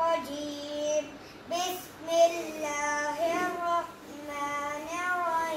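A young boy reciting the Quran in a melodic chant, holding long notes that bend up and down, in phrases with short pauses between them.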